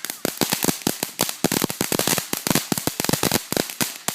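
Firecrackers going off in a fast, irregular run of sharp pops, several a second, keeping on without a break.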